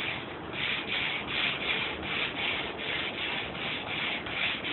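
Hand sanding with 80-grit sandpaper on a sanding block, rubbed back and forth across a varnished wooden tabletop at an even pace of about three strokes a second, stripping off the old stain and finish.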